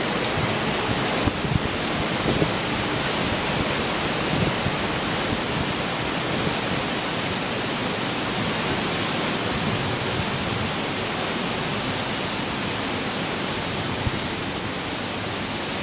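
Tornado wind: a loud, steady rush of wind with no let-up, with a few brief knocks in the first few seconds.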